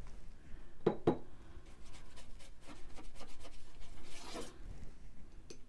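Paintbrush rubbing thin paint onto heavy Arches oil paper in a series of short strokes, with two sharper taps about a second in.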